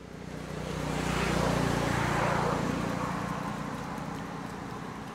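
A motor vehicle going past: a low engine hum that swells to its loudest about two seconds in, then slowly fades.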